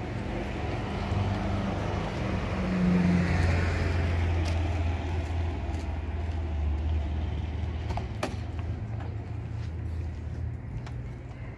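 Car engine running steadily with a low hum, growing louder for a moment about three seconds in. A sharp click comes about eight seconds in.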